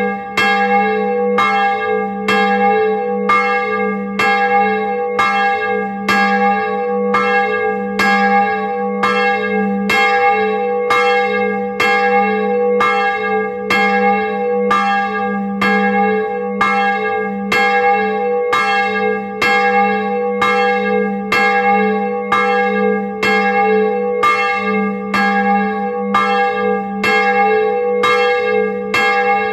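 A single bronze church bell cast in 1658, tuned to G♯3, swinging and ringing. Its clapper strikes evenly, about once a second, each stroke over the bell's steady hum.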